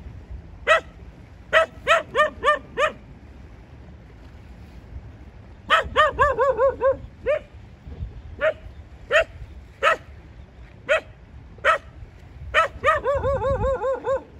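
Dog barking repeatedly: single barks spaced out, with quick runs of barks about six seconds in and again near the end.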